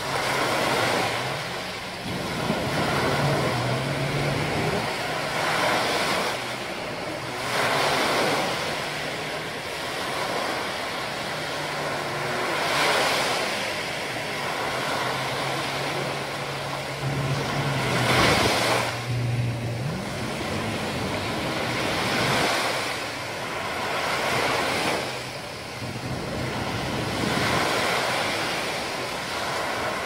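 Small waves breaking and washing up a sandy beach, the surf swelling and falling back every few seconds. A faint low hum runs under it for a few seconds at a time.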